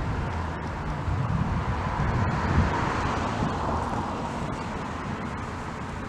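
Steady rush of road and wind noise from a moving car, with low wind buffeting on the microphone, swelling a little in the middle.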